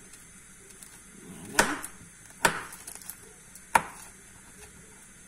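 Kitchen knife chopping pieces off a block of solid musk on a wooden board: three sharp knocks about a second apart.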